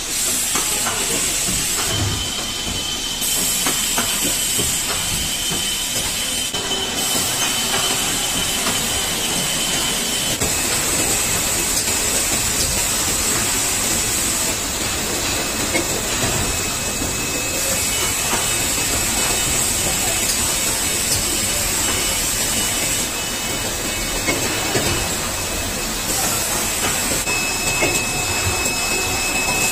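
Steady hissing drone of plastic injection molding and automated spoon folding and packing machinery running, with a constant high whine over it. The noise shifts abruptly every few seconds.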